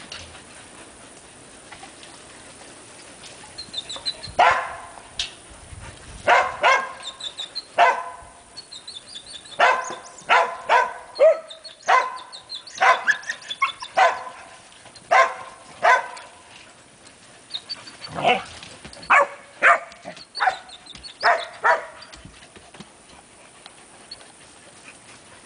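Young dogs barking in play: about twenty short, sharp barks in quick runs, starting about four seconds in, with brief pauses between the runs.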